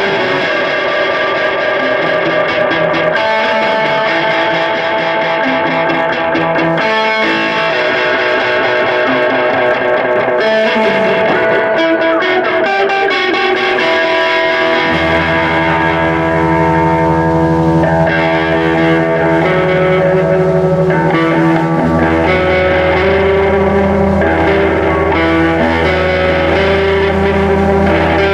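Band playing an instrumental passage led by electric guitar through effects and distortion. A deep, sustained bass line comes in about halfway through.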